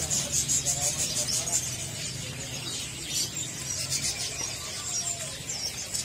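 Many small cage birds chirping and twittering at once, a rapid high-pitched chatter that is busiest in the first second and a half, over a steady low hum.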